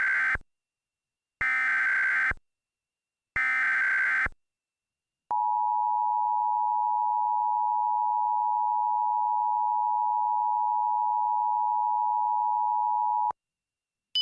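EAS SAME header: three screeching bursts of digital data tones, each about a second long with a second's pause between. They are followed by the two-tone EAS attention signal, held steady for about eight seconds before it cuts off, marking the start of a new emergency alert.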